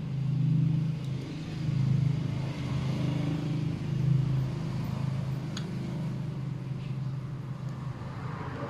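A low, steady engine hum that swells louder three times in the first few seconds, then holds level. A faint click comes about five and a half seconds in.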